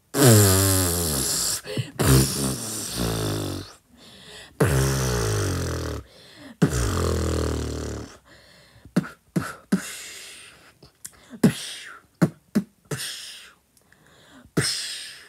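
Beatboxing voice: four long, loud tones that slide down in pitch over the first eight seconds, then a run of short, sharp percussive hits.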